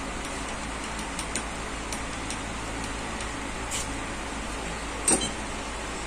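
A brief squirt of aerosol freeze spray about four seconds in, over a steady low hiss with a few faint light ticks, then a single sharp knock about five seconds in.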